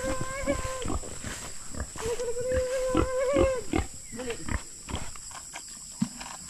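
A pig squealing at feeding time: two long, steady, slightly wavering squeals, the second starting about two seconds in and lasting longer, over footsteps through grass and soil.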